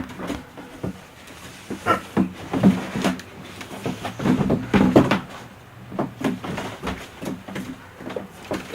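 A series of irregular knocks and clunks, some with a hollow low thud, like objects being handled and bumped.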